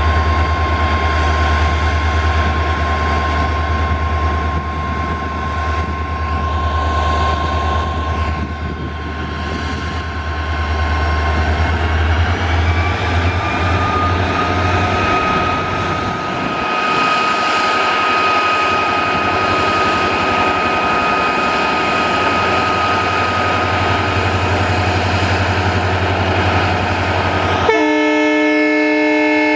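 A pair of EMD GT46MAC (WDG4) diesel-electric locomotives running hard at a high power notch, their 16-cylinder two-stroke turbocharged engines giving a heavy drone with a high turbo whine that rises a little in pitch about halfway through. Near the end the locomotive's horn sounds a sustained chord-like blast.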